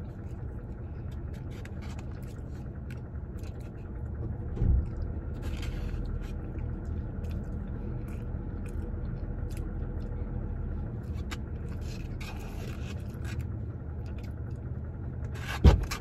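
Plastic spoon scraping and clicking in a small disposable cup of rice while someone eats, over a steady low rumble. A thump comes about four and a half seconds in, and a sharper knock near the end.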